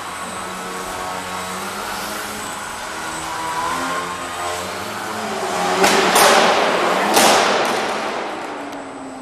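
Electric motor and propeller of an indoor foam 3D aerobatic RC plane whining, the pitch shifting with throttle. Two loud rushing bursts come about six and seven seconds in.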